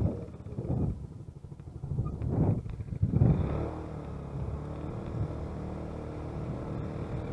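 A vehicle engine running at low, steady revs, with gusts of wind buffeting the microphone in the first three seconds.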